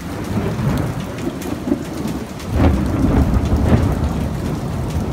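Thunder rumbling over steady rain, following a lightning flash. It starts right away, swells louder about two and a half seconds in, and is still rolling at the end, with rain pattering on the wet patio throughout.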